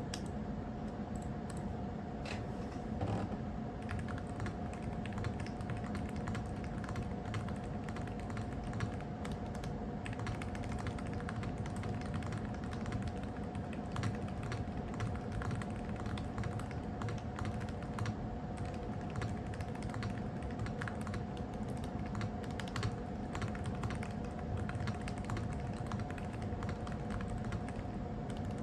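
Continuous typing on a Nuphy Air60 HE low-profile magnetic-switch keyboard with Gateron Jet Pro low-profile switches: a dense run of key clicks, clean-sounding, neither hollow nor poppy, and not very loud.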